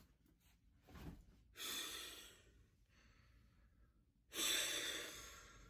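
A man's breathy exhales, faint: a short one about a second and a half in and a longer one near the end that trails off, like sighs.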